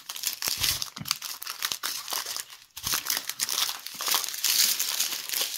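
Small plastic bags of diamond painting drills crinkling as they are handled: a run of quick, irregular crackles with a short lull about two and a half seconds in.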